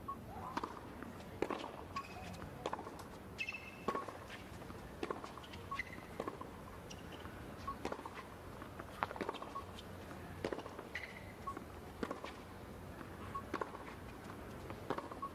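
Tennis serve and baseline rally on a hard court: sharp pops of the ball off the rackets and the court, roughly one a second, with short high squeaks between them.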